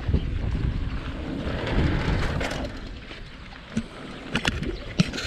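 Mountain bike rolling down a dirt trail, with wind rushing on the microphone and tyre rumble. About halfway through it quiets down, leaving a few sharp clicks and knocks near the end.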